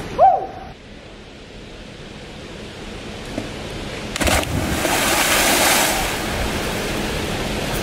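Steady rushing noise that swells loudly about four seconds in and eases back after about six seconds. A brief whistle-like chirp sounds right at the start.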